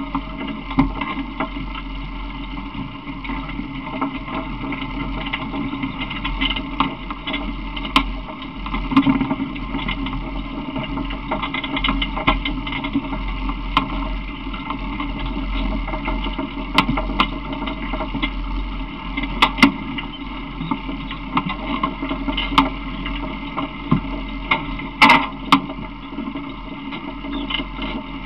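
Steady rumble and rattle of a small open vehicle rolling along, with scattered sharp knocks from the ride.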